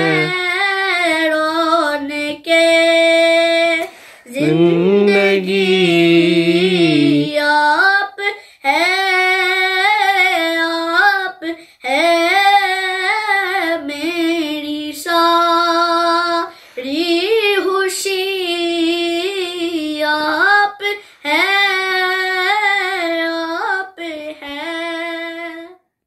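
A boy singing an unaccompanied naat (devotional song to the Prophet) in Urdu, in held, ornamented phrases of a few seconds each with short pauses for breath. The singing stops just before the end.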